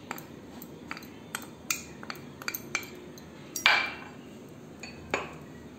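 Metal spoon clinking and scraping against glass bowls as flour is scraped out of one glass bowl into another: a string of light irregular clicks, the loudest about two-thirds of the way through.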